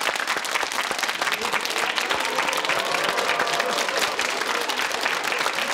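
Studio audience applauding with dense, steady clapping.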